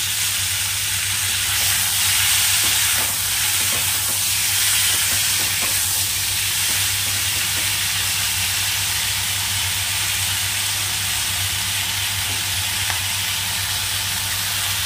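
Potato sticks and onion flower stalks sizzling steadily in hot oil in a karai (wok).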